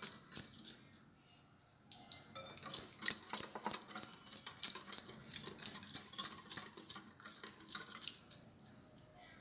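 Spoon clinking and scraping against a bowl while stirring a spice paste of chili powder, turmeric, salt, ginger-garlic paste and water. A quick, uneven run of ringing clinks, broken by a short pause about a second in.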